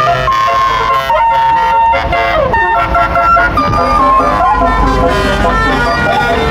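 A tour bus's multi-tone 'telolet' horn playing a tune, holding notes and sliding between pitches, over the low rumble of the bus's engine.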